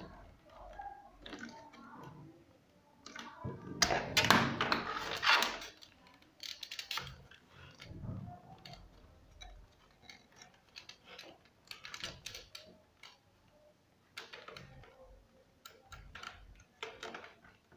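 Hard plastic clicks, taps and scrapes of an Acer KA220HQ monitor's stand neck being worked against its mount while the metal latch is pressed to free it. A louder stretch of scraping and rattling comes about four to five seconds in.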